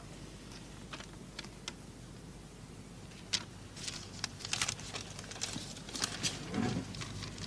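A sheet of paper handled and passed between hands: scattered light clicks and rustles, sparse at first and busiest from about three seconds in.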